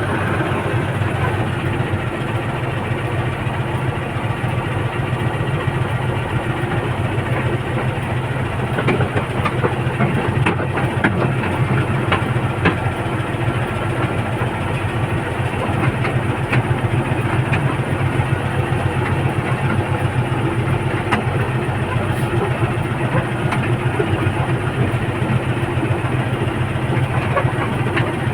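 Heavy diesel engine running steadily, with a few light clanks mixed in.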